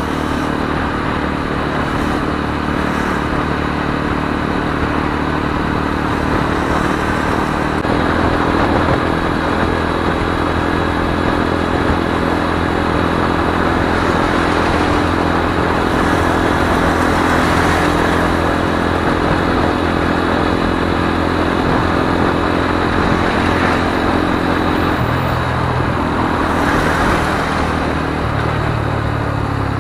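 Lexmoto ZSX-F 125's small single-cylinder four-stroke engine running steadily under way in traffic, under steady wind noise. Engine pitch steps up about eight seconds in and drops near the end.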